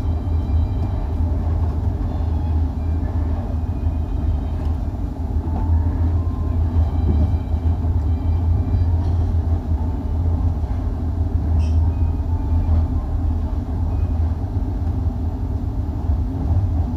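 Steady low rumble of a 25G passenger coach running along the rails at speed, heard from inside the carriage.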